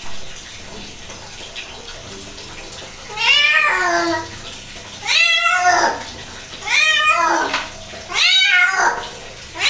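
Wet domestic cat meowing loudly in protest while being bathed and scrubbed: four long, drawn-out meows, each rising and falling in pitch. They begin about three seconds in and come at even intervals.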